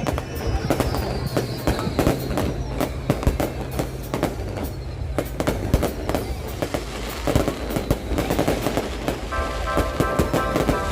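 Fireworks going off in a rapid, continuous run of bangs and crackles, with music playing underneath.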